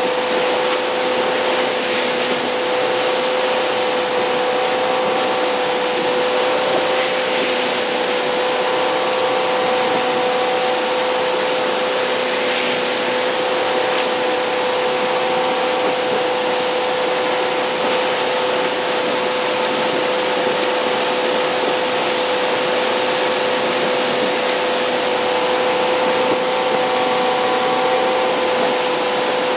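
MasterCraft ski boat's inboard engine running at a steady towing speed, a constant hum under the rush of wake water and wind. A few brief hissy swells come and go in the first half.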